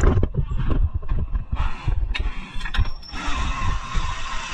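Scattered low knocks and clicks of metal tools and parts during work on the rear suspension, then a steady hissing noise from about three seconds in.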